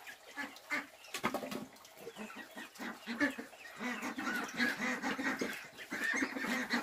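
Domestic poultry clucking and calling over and over in short, quick calls, with a few sharp knocks mixed in.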